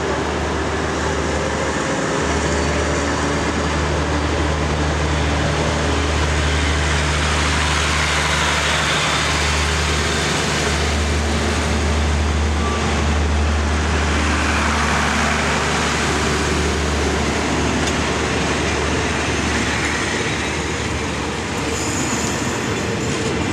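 Diesel locomotive No. 4133 of the State Railway of Thailand heading a rapid passenger train, its engine a steady low drone under continuous rail and wheel noise.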